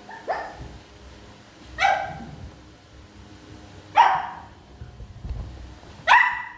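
A small Shih Tzu-type dog barking: four single barks about two seconds apart, the first one fainter.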